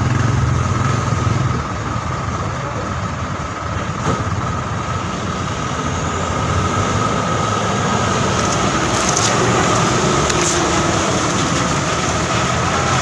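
Diesel engine of a loaded heavy truck running as it crawls slowly along a muddy, rutted road, a low rumble that eases off after about a second and a half. A steady high whine runs underneath.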